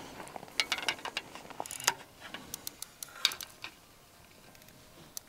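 Fishing spinning reel being wound after a feeder cast, taking up slack line: a run of irregular mechanical clicks and ticks from the reel and rod handling, with two louder clicks, then it goes quiet as the rod is set in its rest.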